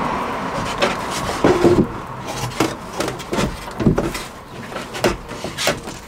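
Irregular knocks, clicks and rubbing of a white furniture panel being pushed and fitted into place against the van's interior wall.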